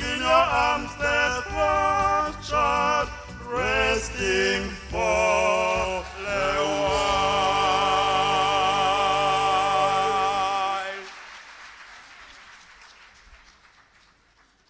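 Mixed choir, with men's voices to the fore, singing the closing phrases of a hymn. They end on one long held chord that breaks off about eleven seconds in, and the sound then fades away almost to silence.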